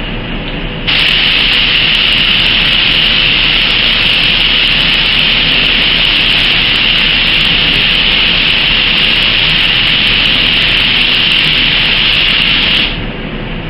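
Gravity-feed paint spray gun spraying paint, a loud even hiss of air and atomised paint that starts abruptly about a second in as the trigger is pulled and stops abruptly near the end when it is released.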